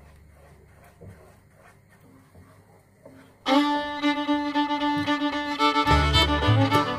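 Faint, regular scraping of a wooden spoon stirring in a pot, then background music with a fiddle melody that starts abruptly about halfway through, with a bass line joining near the end.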